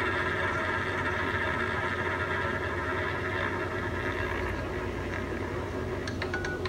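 Electronic roulette terminal playing its wheel-spin sound: a steady whirr of the rolling ball that thins out after about four seconds, then near the end a run of quick ticks as the ball starts to skip across the pockets, over the low hum of the machine.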